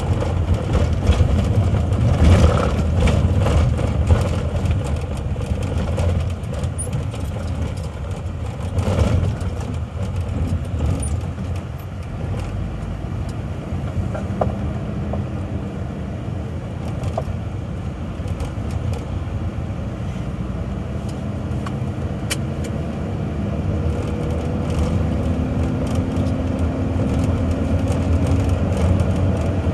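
Cab noise of a vehicle driving on a rough, dusty road: steady engine and tyre rumble. Rattles and knocks come through in roughly the first ten seconds, and a faint whine rises slowly in pitch near the end as the vehicle speeds up.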